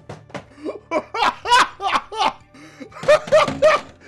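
Laughter in quick repeated bursts over background music with a steady low bass.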